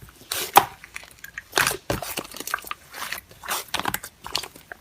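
Slime being pressed and squished by hand, giving an irregular run of crunchy clicks and crackles.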